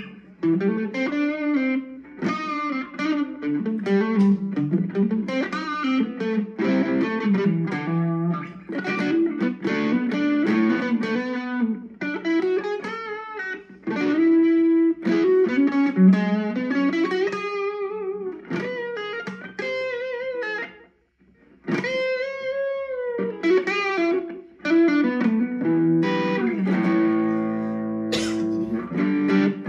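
Electric guitar, a Korean-made Legend Les Paul Custom copy played through a Boss Katana-Mini amp, with a clean tone. It plays a melodic single-note line with string bends, stops briefly about two-thirds of the way through, and ends on ringing chords.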